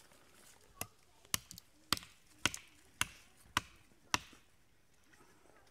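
TOPS American Trail Maker blade chopping into a small maple sapling: about seven sharp strikes, roughly two a second, stopping about four seconds in.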